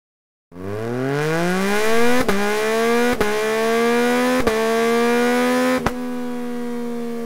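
Yamaha MT-09's 890 cc inline three-cylinder engine revving through an Akrapovič exhaust, starting about half a second in: the pitch climbs over the first two seconds, then holds high and steady, broken by four sharp clicks.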